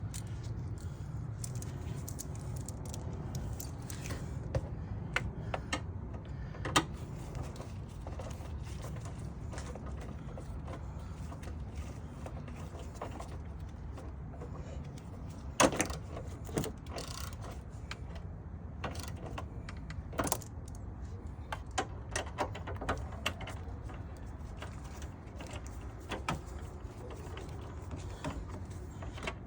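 Metal hand tools, a 10 mm socket on an extension, clicking and clinking irregularly in the engine bay, with a few sharper knocks, over a steady low hum.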